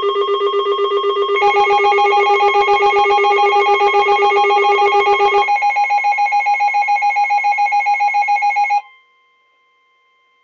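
Weather radio alert alarms sounding for an incoming severe thunderstorm warning: loud, rapidly pulsing electronic beeping in two overlapping pitches. The lower one stops about five seconds in, the higher one joins about a second and a half in, and both cut off near the end, leaving a faint steady tone.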